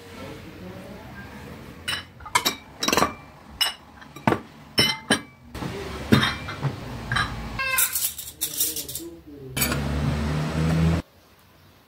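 Porcelain plates and bowls clinking as they are set down and stacked on a marble tabletop, with metal cutlery clinking as it is laid beside them: a quick run of separate sharp clinks. Near the end a steady noise runs for a second or so and cuts off suddenly.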